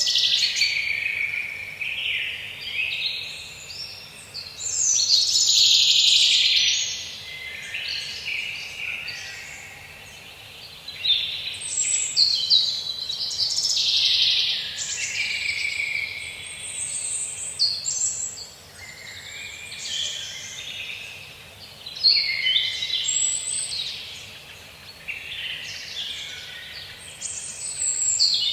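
Forest birds singing and calling, several high chirping and trilling songs overlapping in bouts of a few seconds with short lulls between, over a faint steady background hiss.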